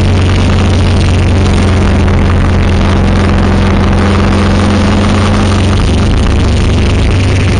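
Motorcycle engine running at a steady speed while the bike leans through curves, its pitch holding level, under heavy wind and road noise.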